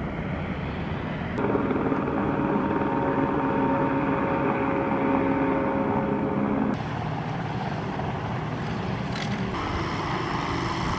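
Boat engine running steadily, a low, even hum with a steady pitch. The sound cuts abruptly twice, about one and a half seconds in and again near seven seconds, to a lower-level engine and water noise.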